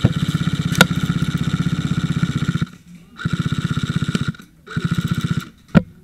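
Airsoft gun firing on full auto, a fast even rattle over a steady whine: one long burst that stops a little under three seconds in, then two short bursts. A single sharp crack follows near the end.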